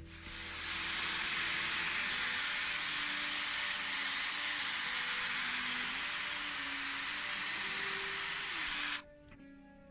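Dyson Airwrap hair styler running: a steady rush of blown air with a faint high whine. It comes up within the first second and cuts off suddenly near the end.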